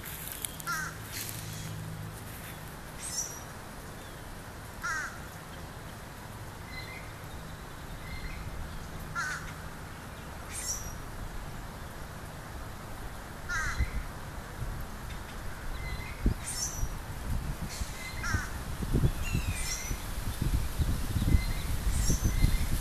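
Sandhill cranes giving short rattling calls, about one every four seconds, with higher chirps of smaller birds between them. Low buffeting noise grows through the second half.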